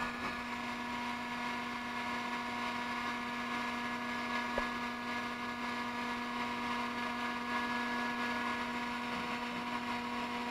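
Dremel 3D40 3D printer humming steadily during filament loading, with a low steady tone and several fainter higher ones from its fans and motors. A faint click comes about four and a half seconds in.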